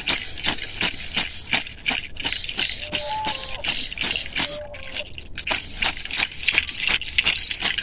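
A bundle of fresh leafy herbs brushed and patted against a person's back and shoulders in a cleansing ritual, rustling in quick, even strokes, about three a second.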